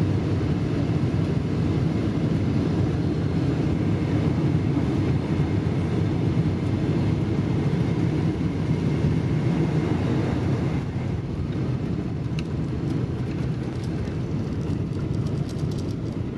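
Cabin noise of a Boeing 747-400 during landing, heard by the window over the wing: a steady deep rumble of engines and rushing air. It drops in level about eleven seconds in, with a few light rattles near the end.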